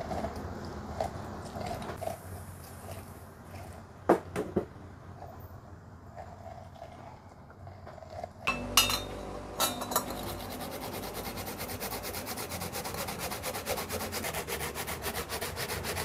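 A lemon half twisted on a plastic hand juicer makes a faint rubbing, with a couple of sharp knocks about four seconds in. After a few louder knocks around the middle, a guava is grated on a metal hand grater in quick, even rasping strokes.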